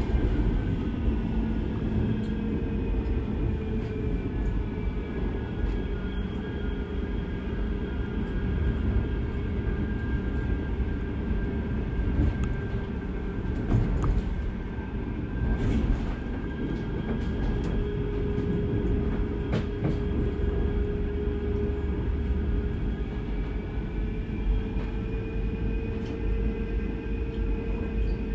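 Inside a Manchester Metrolink Bombardier M5000 tram under way: steady rumble of the wheels on the rails with the whine of the electric traction drive. The whine sinks slowly in pitch over the first ten seconds or so and rises again near the end. A few short knocks are heard.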